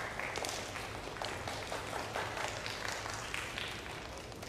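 Audience applauding, many quick hand claps that taper off a little near the end.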